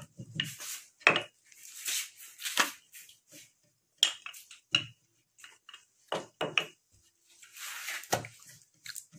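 Wooden rolling pin rolling out roti dough on a round board, with irregular knocks and clatter as the pin and board bump against the counter, and a short scraping rustle between the knocks.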